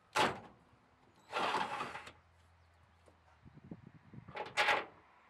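A cordless drill runs in two short bursts in the drilled hole through the steel hitch rail: the first very brief and sharp, the second about a second long. Near the end come a run of light metal clicks and clinks as a carriage bolt is handled and set into the hole.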